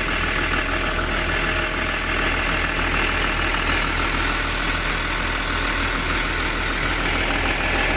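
The six-cylinder diesel engine of a Volvo EW145B wheeled excavator running steadily at idle, moments after starting on a fresh set of six injectors with the fuel system just bled.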